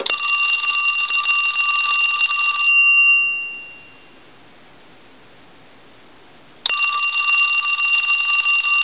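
Telephone bell ringing on a test ring cycle from the line analyzer: one ring of about two and a half seconds that fades out, a pause of about three seconds, then the next ring starting near the end. The ringer is working after repair.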